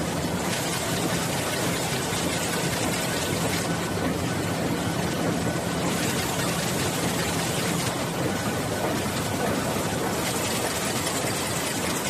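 Stream log feeder for a bookbinding line running, its conveyor belts carrying overlapped paper signatures: a steady mechanical drone with a low, even hum.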